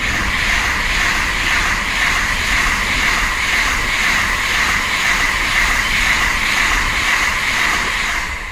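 Tokaido Shinkansen train passing: a loud, steady rushing noise of wheels and air that builds up just before and eases a little near the end.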